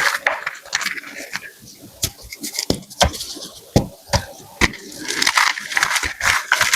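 Blocks of black gym chalk being crushed, giving a string of irregular sharp cracks and crumbly crunches.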